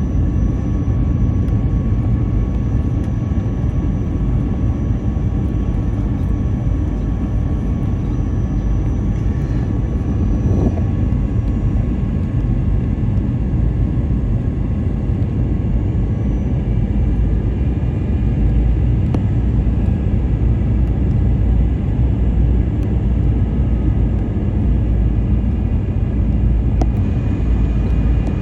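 Airbus A321 cabin noise heard from inside the cabin: a steady, loud rumble of engines and airflow, with a faint high whine that fades about twelve seconds in.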